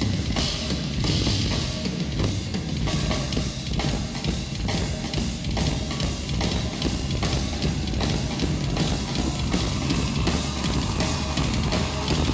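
Drum-kit solo played live: a dense, continuous barrage of strokes with a heavy bass drum underneath.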